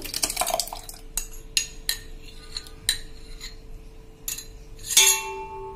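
Steel spoon clinking and scraping against the bowl and mixer jar as thick curd is spooned in, a string of short clicks with one louder ringing clink about five seconds in.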